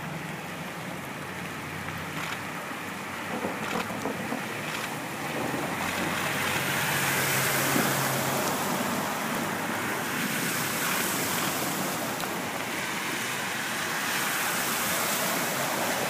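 Cars driving through floodwater covering the road, tyres hissing and spraying water as they pass, with their engines running underneath. The splashing hiss swells about six seconds in as vehicles pass close by.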